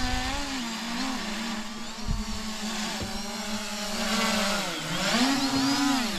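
Quadcopter drone's propellers and motors whining steadily as it flies close by, the pitch wavering, dipping near the end of the third second before the end and rising again as it manoeuvres.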